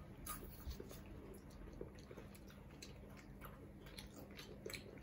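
Faint chewing and crunching of Kit Kat chocolate wafer bars: scattered soft crunches and clicks in a quiet room.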